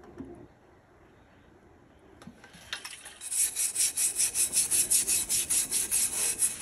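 A brush scrubbing back and forth over an acetone-wet ceramic tile, about four quick rubbing strokes a second, starting about three seconds in. It is scrubbing the excess titanium dioxide coating off the laser-etched tile.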